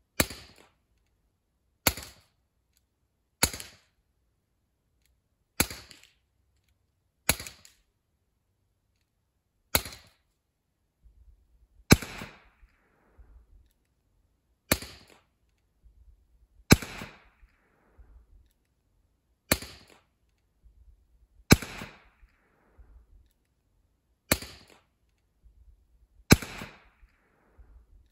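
Umarex T4E HDP 50 CO2 pistol firing about thirteen single shots, each a sharp pop, spaced roughly two seconds apart; several shots trail off in a short rattle.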